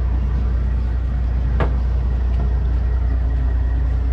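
Large vehicle engine idling with a steady low hum, with one sharp click about a second and a half in.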